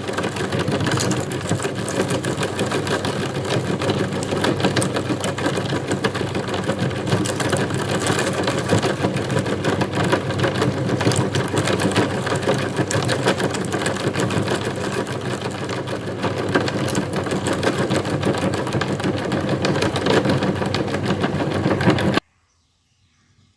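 Electric meat grinder running under load, grinding glutinous rice cakes: a steady motor hum with a fast rattle, which stops abruptly near the end.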